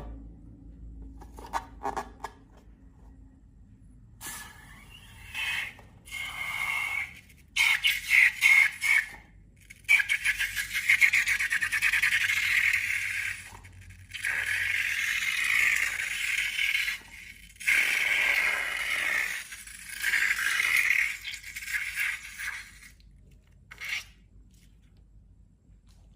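Slime being worked by hand: scraping, sticky crackling sounds in a string of bursts lasting one to three seconds each, with short pauses between them.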